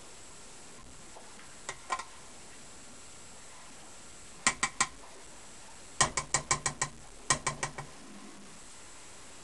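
A hand patting and pressing a lump of freshly churned butter on a board, in short runs of quick wet pats: a pair near two seconds in, three at about four and a half seconds, then a run of six followed by four more around seven seconds.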